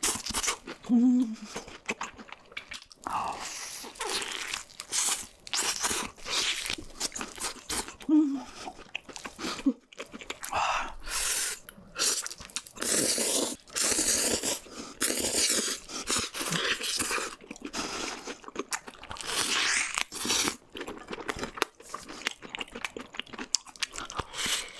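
Close-miked eating sounds: crunching bites into batter-fried chicken, chewing, and noodles being slurped, in irregular bursts one after another.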